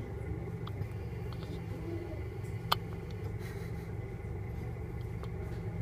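A baby hiccups once, a short sharp 'hic' about two and a half seconds in, over a steady low rumble.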